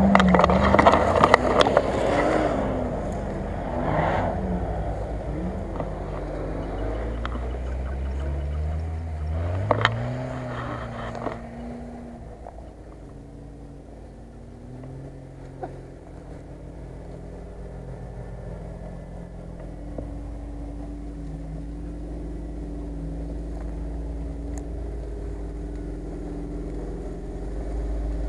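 Land Rover Discovery engine working off-road, loudest at the start under a rush of noise, its revs climbing about a third of the way in. It then runs steadier and quieter, growing louder again near the end as the vehicle comes closer.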